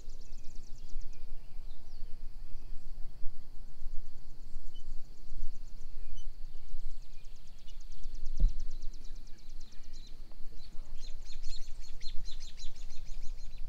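Outdoor ambience: a steady low wind rumble on the microphone, with high, rapid pulsing trills repeating in the background and a single low thump about eight seconds in.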